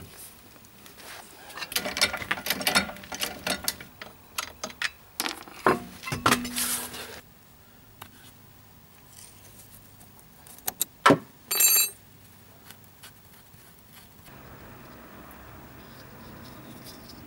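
Metal clinks and rattles of wheel bolts being spun out by hand and handled, a dense run of sharp clicks for the first several seconds. After a quieter gap comes one sharp knock and a short rattle, and a steady low hum sets in near the end.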